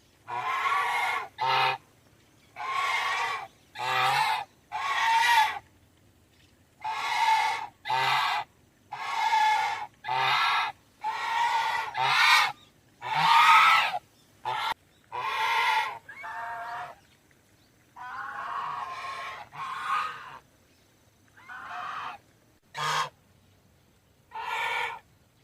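Domestic goose honking: a long series of separate, harsh honks, each under a second, some in quick pairs, with short pauses between them.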